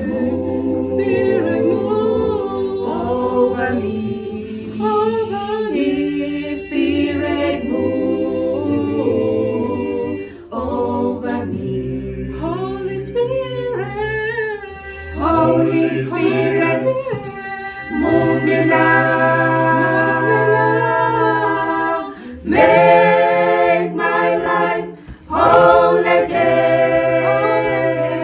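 A small group of voices, mostly women's, singing together unaccompanied, with short breaks between phrases.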